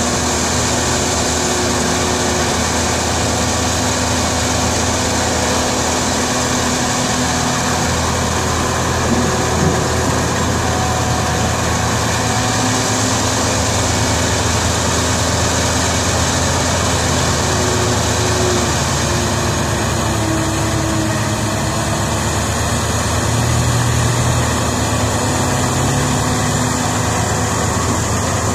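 Caterpillar E120B hydraulic excavator's diesel engine running steadily under work, digging and loading a dump truck.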